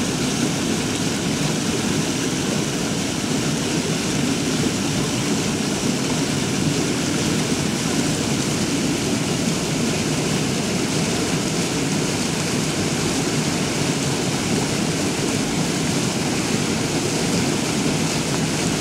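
Swollen, muddy floodwater rushing and churning over a stepped drop in a stone-lined channel: a loud, steady rush of water.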